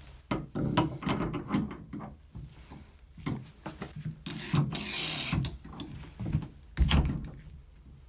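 Metal clicks and knocks of a tubular shower-valve socket wrench being fitted over a shower stem valve and levered round with a screwdriver through it, with a scraping grind lasting about a second near five seconds in as the valve body turns loose in the wall, and a sharp knock near the end.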